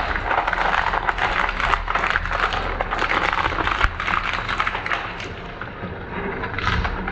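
Dual-shaft shredder's hooked cutter discs crunching a plastic toy dinosaur apart: a dense run of cracking and snapping plastic over the low drone of the shredder's drive. It eases a little near the end, then picks up again as more of the toy is caught.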